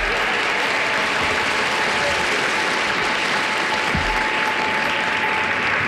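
Studio audience applauding steadily after a correct password guess.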